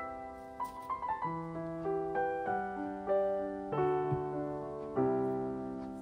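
Background piano music: a slow, gentle melody of single held notes and chords, with a sharp click right at the start.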